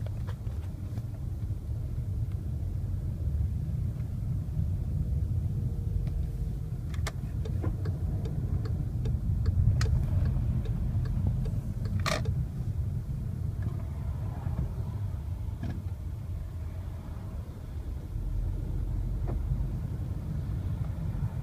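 Car under way with a steady low rumble, and knocking from a DQ500 seven-speed DSG gearbox: a run of short, sharp knocks starting about a third of the way in, the loudest just past the middle, and a couple of fainter ones later. The knock is a fault in the gearbox's third gear.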